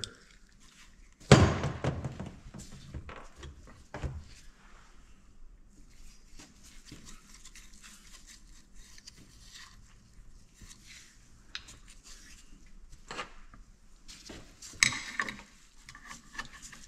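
Metal governor parts being handled and set down on a workbench: a heavy clunk about a second in, a few lighter knocks and clicks with some scraping, and another clatter near the end.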